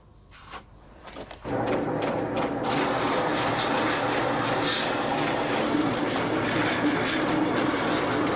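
Motor-driven water grinding stone running, with a steel knife blade held against it to smooth its faces: a steady hum under a grinding hiss. It comes in abruptly about a second and a half in, after a few faint clicks.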